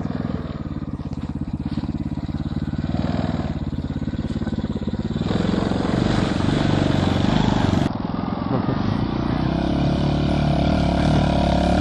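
Small petrol engine of a ride-on mini Jeep running under throttle as it drives over a muddy track, getting louder about five seconds in.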